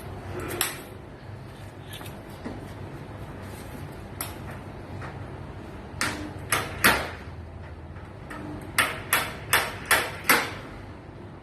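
A dent-puller spot welder at work on sheet metal: sharp metal knocks of a slide hammer pulling, with a run of five about two a second near the end, and a couple of short buzzes from the weld pulses. A low hum runs under it all.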